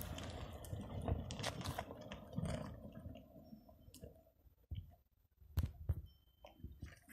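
Loose gravel and stones crunching and crackling, fading over the first few seconds and then thinning to scattered clicks and knocks.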